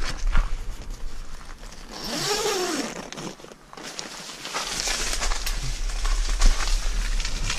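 A zip on a fishing bivvy being pulled, with the nylon tent fabric rustling as the door flap is pushed aside. A few footsteps on gravel at the start.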